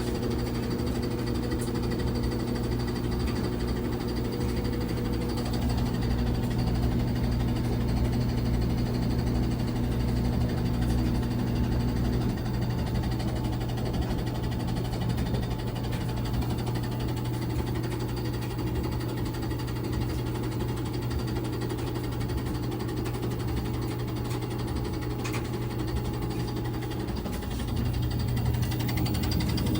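LG WT1101CW top-load washing machine running in its spin cycle, a steady low hum with vibration; a few of the higher tones in the hum drop away about twelve seconds in. This is the spin noise the owner complains of, with the machine shaking.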